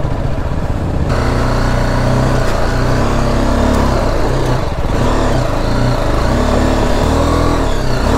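Single-cylinder adventure motorcycle engine being ridden on a rough dirt trail, its revs rising and falling again and again as the throttle is worked. It grows louder about a second in.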